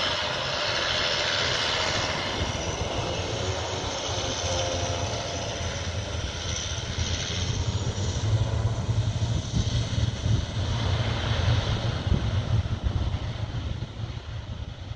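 Twin-turboprop ATR 72-500's Pratt & Whitney PW127 engines and propellers at takeoff power as the airliner rolls down the runway and away. The high whine fades over the first half while a low rumble carries on.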